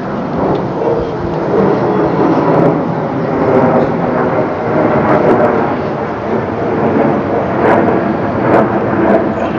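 Airliner passing low overhead, a loud, steady engine noise with faint held tones in it and a few short crackles near the end.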